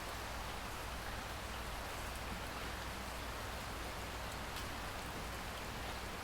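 Steady rain falling, an even hiss with faint scattered drops ticking.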